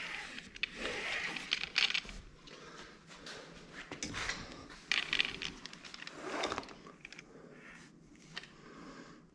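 Soft-top fabric being rubbed and pressed by hand into a glued crease on a header bow: irregular scraping and rustling strokes that thin out after about seven seconds.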